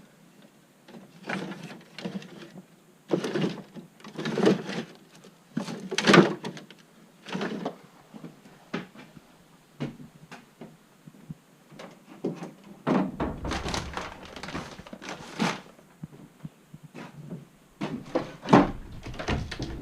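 Irregular knocks, thunks and clatter of boxes and gear being shifted while rummaging for a frame: a dozen or so separate bangs, with heavier, deeper thuds past the middle and again near the end.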